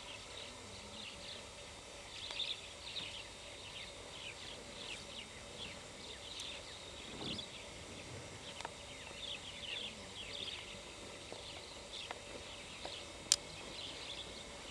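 Outdoor grassland ambience full of quick, high, downward-slurred chirps from small birds calling all around. There is a brief low thud about seven seconds in and a sharp click near the end.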